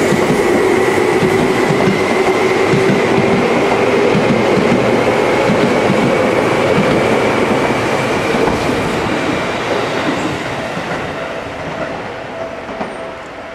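Yellow Seibu Railway commuter electric train running close past, its wheels clicking over the rail joints over a dense rumble with a steady whine. The sound fades away over the last few seconds as the train clears.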